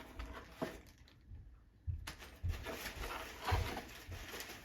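Rustling and a few dull thumps of packaging being handled as a fire alarm strobe is unboxed.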